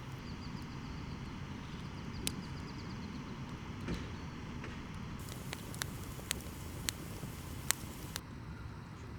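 Wood fire crackling: scattered sharp pops, several in the second half, over a steady low rumble.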